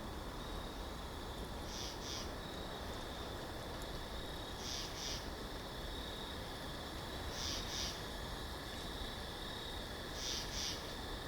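Steady winter-forest wind noise, with a short, high, hissing sound that comes as a quick pair about every three seconds. A faint thin high tone runs underneath.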